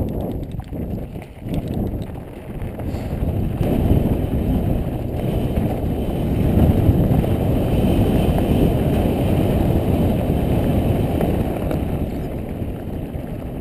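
Mountain bike rolling along a rough dirt-and-stone trail: tyres rumbling and crunching over loose rocks and the bike rattling, mixed with wind buffeting the action-camera microphone. It grows a little louder midway and eases near the end.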